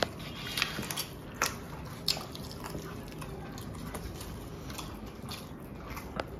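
A person eating fast: biting and chewing food, with sharp clicks and smacks, most of them in the first two seconds, over a steady low background noise.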